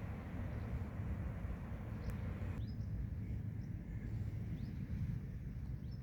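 Steady low outdoor rumble, with a hiss that cuts off suddenly about two and a half seconds in; after it, a few faint short bird chirps.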